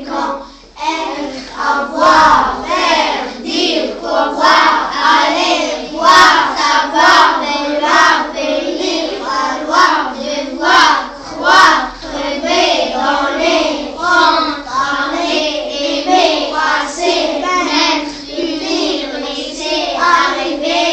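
A child singing alone, without accompaniment, in a run of short sung phrases.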